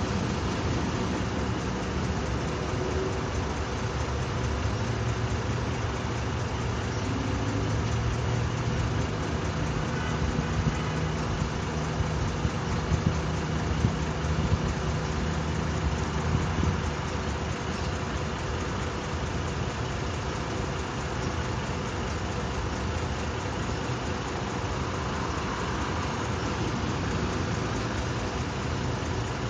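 Steady freeway traffic noise, with a low engine hum that swells for about ten seconds in the middle.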